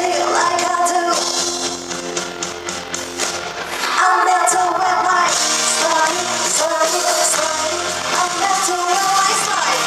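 K-pop song performed live: a woman singing over the full band track. The music drops back a couple of seconds in and returns at full strength about four seconds in.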